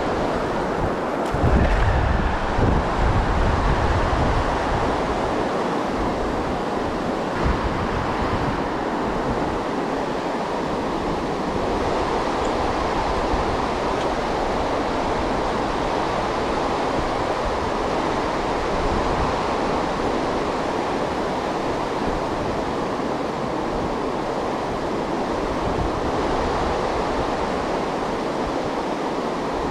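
Steady rushing of flowing creek water, with wind buffeting the microphone in low gusts during the first few seconds.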